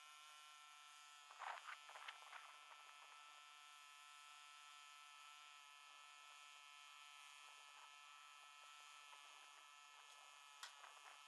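Near silence: a faint steady electrical hum, with a few faint knocks about a second and a half in and again near the end.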